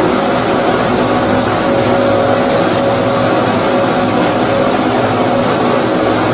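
Continuous baby-sleep white noise: a steady, unchanging rushing sound weighted toward the lower-middle range with a faint hum under it, the kind played to mimic the sound heard in the womb.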